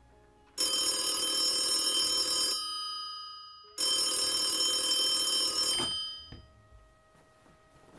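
Wall-mounted telephone's bell ringing twice, each ring about two seconds long with a short pause between. The ringing stops as the handset is lifted off the hook.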